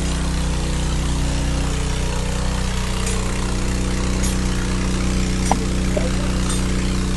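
Borehole drilling rig's engine running steadily, an even drone with a few faint ticks over it.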